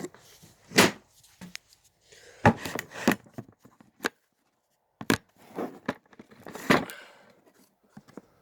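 Irregular metal knocks and clatter, about six sharp clanks with scraping between them. It is the sound of a chain, bolts and a wrench being handled and set against an engine's flywheel to lock it while the flywheel bolts are undone.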